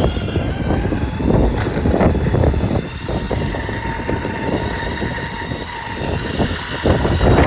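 Ecomobl ET electric off-road skateboard being ridden: uneven rolling rumble from its wheels, with wind buffeting the microphone. A faint steady whine runs underneath.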